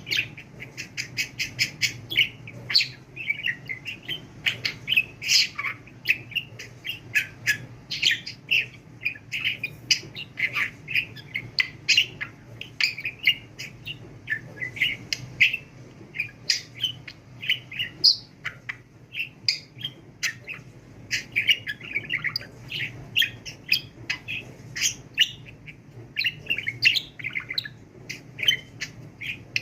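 Pet budgerigar chattering and warbling without pause: a dense, unbroken run of quick chirps and squeaky notes.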